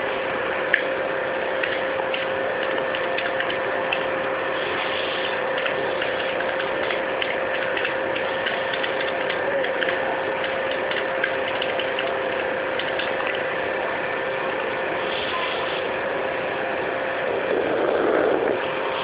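Computer keyboard typing: quick, irregular key clicks over a steady background hum.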